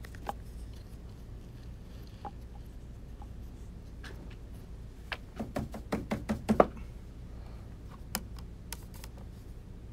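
Painting tools being handled off-camera: a quick run of small knocks and clicks, loudest at the end of the run, then a few single clicks near the end, over a low steady hum.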